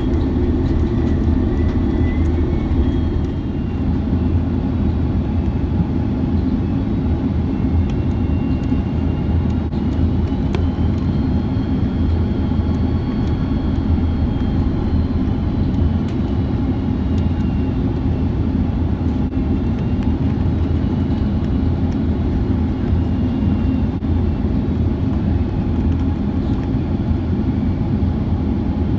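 Airbus A330 cabin noise in flight: a steady low roar of the jet engines and airflow, with faint high engine tones that slowly rise and fall.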